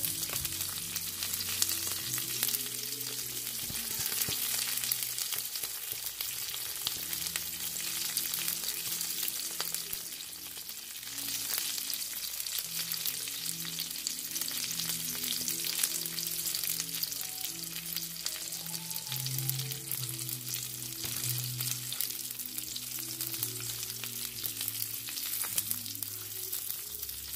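Eggs frying inside onion rings in hot olive oil in a nonstick frying pan: a steady sizzle full of fine crackling pops.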